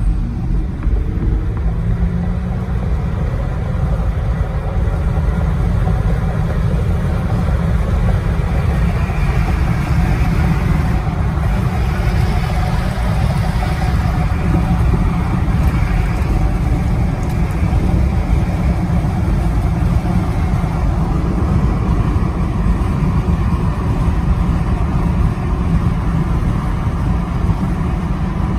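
Steady road and wind noise inside a Jeep's cabin while driving at highway speed: a continuous deep rumble with hiss over it.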